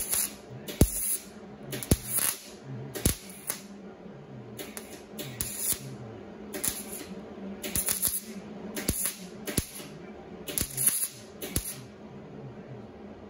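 MIG welder filling holes in truck body sheet metal with a series of short crackling tack bursts, about fifteen of them at uneven intervals, each with the welder's hum, stopping about 12 seconds in.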